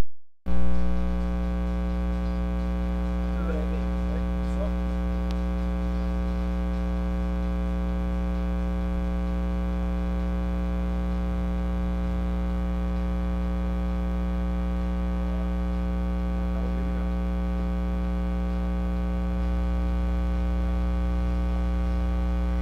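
Steady electrical mains hum with a stack of even overtones, an electrical fault in the live broadcast's audio feed. It opens with a brief loud pop as the audio switches in.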